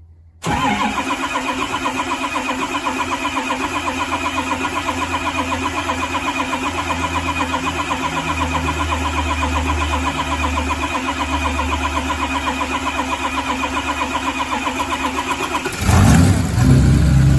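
Ford 6.0 Power Stroke turbo-diesel V8 running at a steady, evenly pulsing idle, cutting in abruptly about half a second in; near the end it gets louder and deeper.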